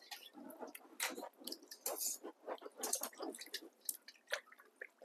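Hands washing a raw half duck in water, with irregular wet squelches, splashes and drips.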